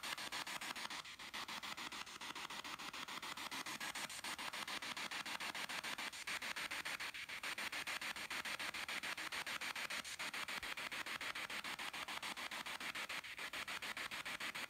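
Spirit box sweeping through radio stations: steady static hiss chopped into rapid, evenly spaced pulses, with no voices coming through.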